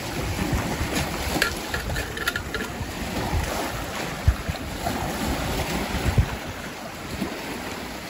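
Small waves of Lake Michigan lapping and washing over a stony cobble shoreline, with wind rumbling on the microphone. Two brief louder thumps come a little after the middle.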